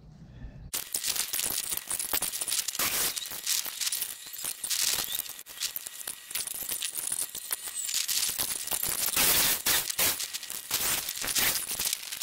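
Thin stacked-stone veneer panels and mortar being worked by hand: a rapid, gritty run of clicks and scrapes, stone against stone and trowel against mortar, starting abruptly under a second in.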